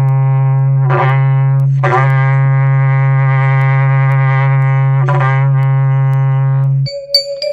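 Berrante, the ox-horn cattle-calling trumpet, blown in long low held notes, each starting with a short wavering swoop, with brief breaks about one, two and five seconds in. Near the end it gives way to a few high bell-like chimes.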